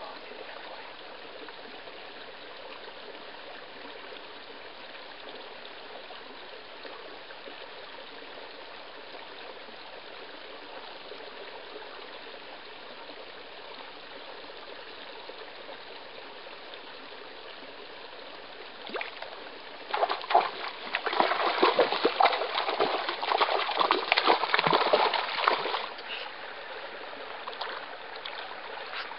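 Small forest stream trickling steadily. About twenty seconds in, several seconds of louder, irregular crackling and rustling take over, then the steady trickle returns.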